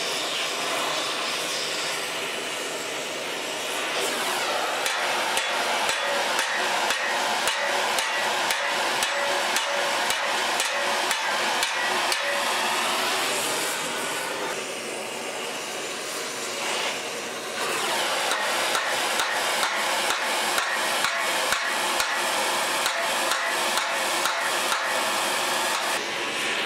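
Hammer blows on the steel front bumper of a 1943 Willys MB, a few strikes a second, as the torch-heated metal is pounded straight, with the steady hiss of the oxyacetylene torch underneath. The hammering pauses for a few seconds past the middle, then resumes.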